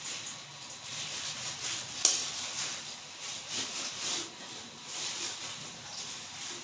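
A steel spoon scrapes chicken mince stuffing into a slit green chilli while fingers press the filling in, giving soft, irregular rubbing and scraping. One sharp clink about two seconds in, as the spoon is set down on the pan.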